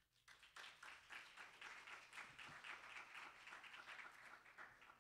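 Audience applauding: a few seconds of clapping that starts just after the talk's closing words and dies away near the end.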